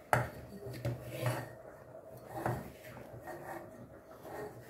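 Roasted grated coconut being scraped by hand off a steel plate into a stainless-steel mixer-grinder jar: a sharp clink of the plate on the jar rim at the start, then irregular soft scraping and rustling.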